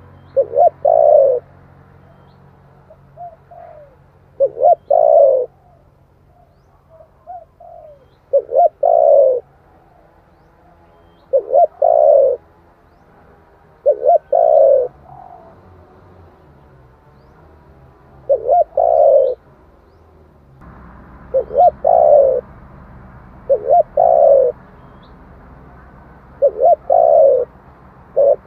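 Spotted dove cooing: a repeated phrase of short coos running into a longer, fuller coo, about every two to four seconds, with softer notes between some phrases. The background hiss steps up suddenly about two-thirds of the way through.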